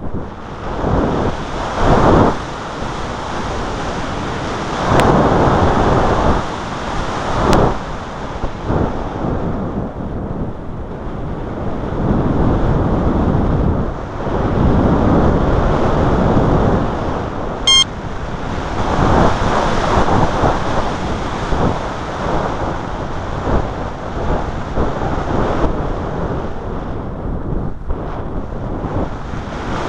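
Wind buffeting the microphone: a loud rushing noise with no engine or motor tone, swelling and easing in gusts every few seconds. A single short click about 18 seconds in.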